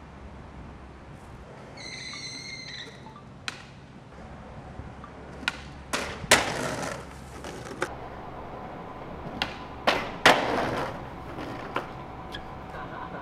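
Skateboard hitting a metal stair handrail about six seconds in and grinding along it for about a second, then slamming hard onto the ground just after ten seconds, with smaller board clacks around both.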